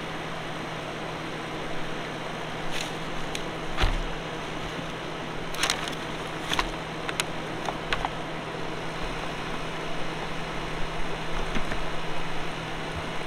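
Cordless drill and small parts being set down and packed into a plastic bucket: a scatter of sharp clicks and knocks, one with a low thud about four seconds in, over a steady background noise and a constant low hum.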